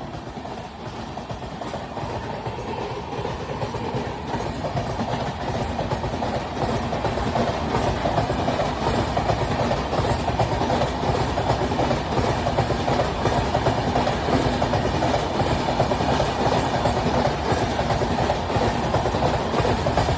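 The 12314 Sealdah Rajdhani Express passing non-stop at full speed: the rush of the coaches and the clickety-clack of wheels over rail joints. It grows louder over the first several seconds and then holds steady.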